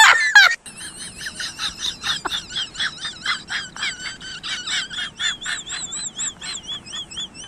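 A loud wailing cry cuts off about half a second in. It is followed by very young kittens squeaking while they play-fight: a rapid, steady run of short, high, wavering chirps, about four or five a second.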